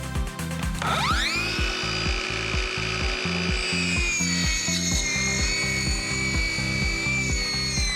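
Power tool spinning up with a rising whine about a second in, then running steady, over background music with a steady beat.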